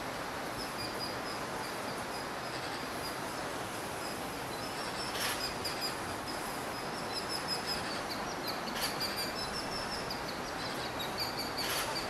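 Outdoor ambience: a steady hiss of background noise under many short, high-pitched bird chirps, which get busier in the second half.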